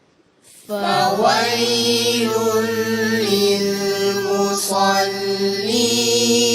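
A man chanting Quran recitation in melodic tajweed style: after a brief silence, the voice comes in about a second in and holds long, drawn-out notes with slow melodic ornaments on the word 'fa-wayl'.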